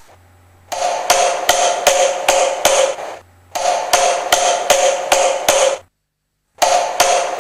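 Woodworking sound effect of a hammer striking wood, about three blows a second in three runs with short pauses between. It stands for Geppetto carving the log into a puppet.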